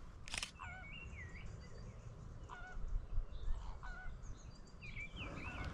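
Goose-like honking calls of large wading birds: three short honks with a few higher gliding calls near the start and end, over a low steady rumble.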